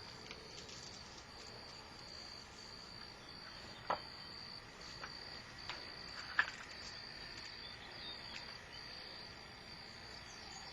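Insects trilling steadily at a high pitch, the trill broken by brief gaps every second or so, with a few sharp clicks about four and six and a half seconds in.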